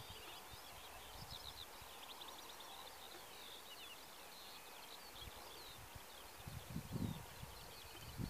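Faint songbird song from the field and woodland edge, many short high chirps and trills running on without a break. A low rumble of wind on the microphone comes in about six and a half seconds in.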